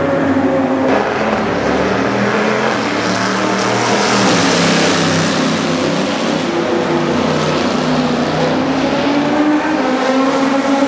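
GT race car engines at full throttle passing on a wet track, with the hiss of tyre spray. The loudest pass comes about four to five seconds in.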